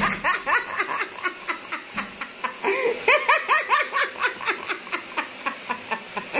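A person laughing hard in quick, even pulses of about four a second, louder from about three seconds in.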